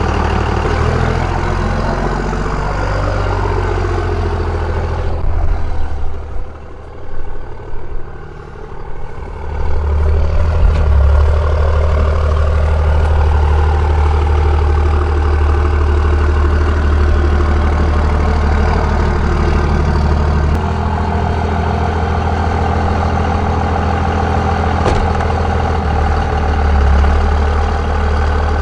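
Diesel pickup truck engine running steadily while towing a dead truck. The engine sound dips for a few seconds about six seconds in, then comes back louder and steady.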